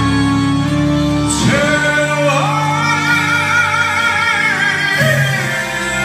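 A man singing into a microphone over backing music, holding one long note with vibrato from about a second in until near the end.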